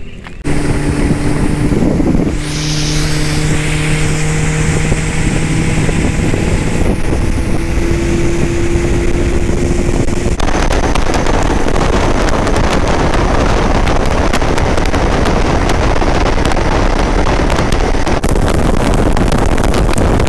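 A bass boat's outboard motor running under way, a steady hum that climbs slightly in pitch. About halfway through it gives way to a loud rush of wind and churning wake water.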